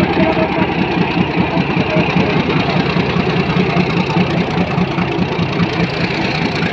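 Diesel locomotive engine running with a steady, loud throb at close range as the locomotive moves slowly past, pulling its train out of the station.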